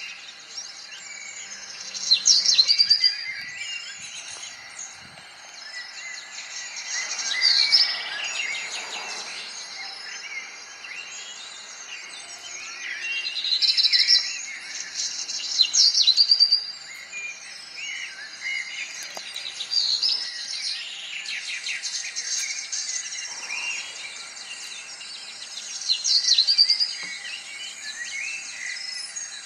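Several songbirds singing and chirping, with louder bursts of song every few seconds over a continuous twittering.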